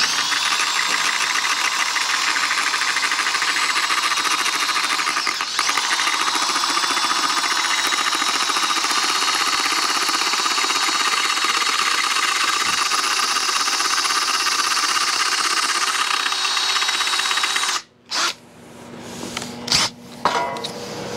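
Cordless drill running at speed with a steady high whine, drilling out the stripped head of a button-head bolt on a motorcycle handlebar. The motor slows and picks back up about five seconds in, then stops near the end, followed by a few knocks of tools being handled.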